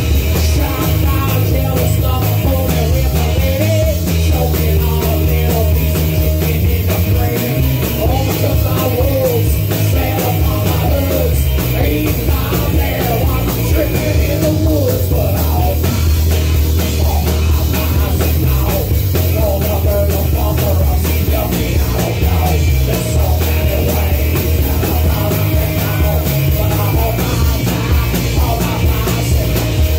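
Live rock band playing loud and steady on drum kit, electric guitar and acoustic guitar.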